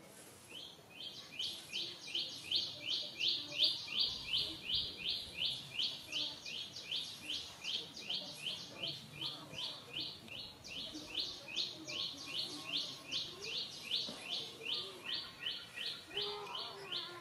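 A bird calling in a long, fast series of short, high chirps, about three a second, steady and unbroken.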